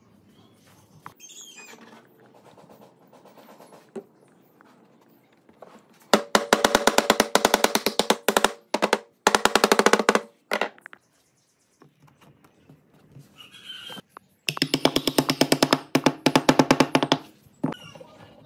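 A small handheld tool pressed against the parquet wood strips rattles out very rapid taps, about a dozen a second, in two bursts of a few seconds each. The first starts about a third of the way in, the second comes near the end. Light handling knocks fall in between.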